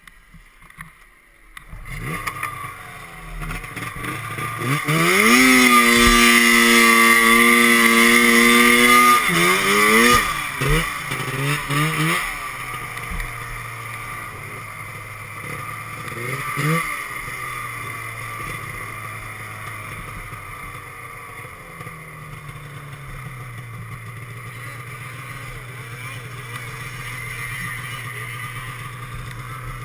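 Snowmobile engine starting up about two seconds in after near silence, then revved high and held there for several seconds. A few quick throttle blips follow, then it settles to a lower steady running speed as the sled moves off through deep snow.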